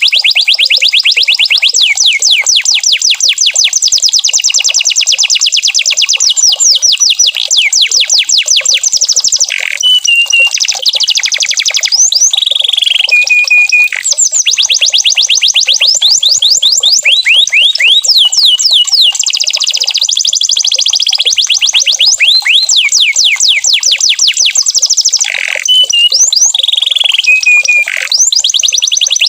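Domestic canary singing non-stop: fast trills of rapidly repeated sweeping notes, broken about a third of the way in and again near the end by short held whistled notes.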